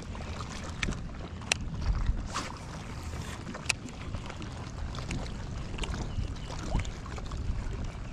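Wind and water noise around a pedal-drive kayak, a steady low rumble, with a couple of sharp clicks, one about a second and a half in and another near the middle.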